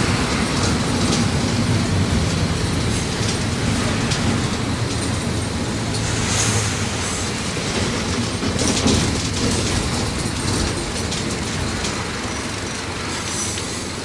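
Mercedes-Benz OM-924 LA four-cylinder inline diesel engine of an OF-1722M city bus running with a steady low hum, mixed with light clicks and rattles.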